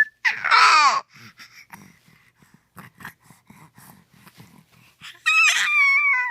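A baby's loud, high-pitched squeals, one right at the start and another about five seconds in, each sliding down in pitch. Soft babbling and breathy sounds come in between.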